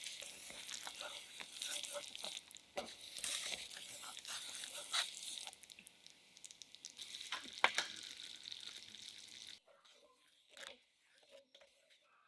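Caramel sauce sizzling and bubbling in a stainless steel pan while a wooden spoon stirs it, with sharp knocks of the spoon against the pan. The sizzle cuts off suddenly about three-quarters of the way through, leaving a few soft stirring sounds.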